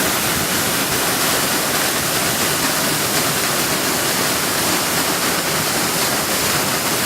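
Waterfall: falling water making a steady, even rush that does not change in level.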